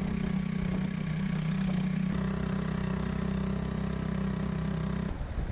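Boat engine running steadily at a constant speed, with a slight change in its note about two seconds in; it cuts off abruptly near the end.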